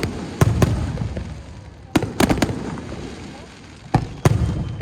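Aerial fireworks shells bursting overhead: three clusters of sharp bangs about two seconds apart, each cluster two or three quick cracks followed by a deep rolling echo.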